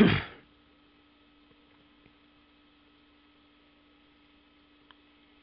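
A brief bit of a man's voice right at the start, then a faint steady electrical hum with two faint clicks, about two seconds and five seconds in.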